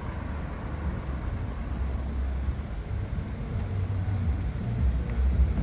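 Quiet city-street ambience: a low, uneven rumble that grows slowly louder toward the end.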